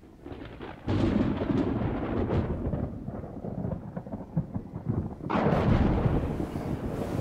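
Thunder rolling: a rumble with crackles breaks in suddenly about a second in and slowly eases, then a second roll swells up just after five seconds.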